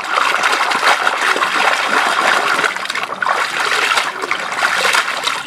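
Water sloshing and splashing in a plastic basin of soapy, foamy water as a hand scrubs a toy in it, a steady wash of splashing throughout.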